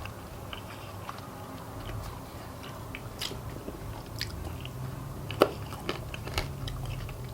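Chewing and biting on fried chicken wing bones, with scattered sharp cracks as the bones split between the teeth. The loudest crack comes about five and a half seconds in.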